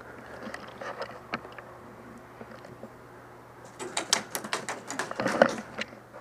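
Airsoft gunfire: a rapid run of sharp clacks lasting about two seconds, starting a little before four seconds in, after a few scattered knocks near the start.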